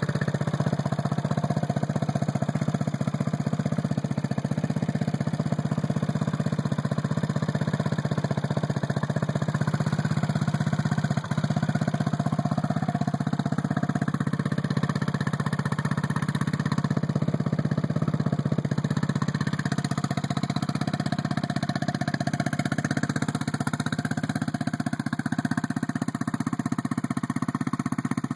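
Freshly assembled turbocharged sport ATV engine idling steadily with no revving, run for a final leak check after assembly.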